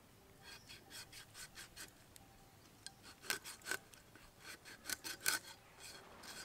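A knife cutting and scraping along the underside of a stingray's tough, sand-like skin to strip it from the flesh: a series of short scraping strokes, two or three a second, with a pause of about a second a little after two seconds in.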